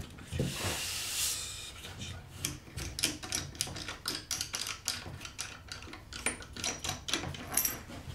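Plywood pieces being handled on a workbench: a board sliding with a scrape, then a run of irregular light taps and clicks.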